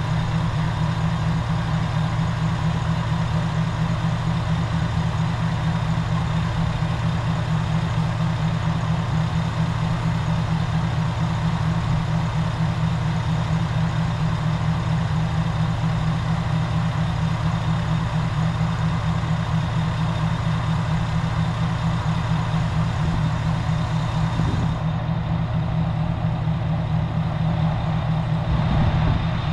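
Diesel railcar engine idling with a steady low hum.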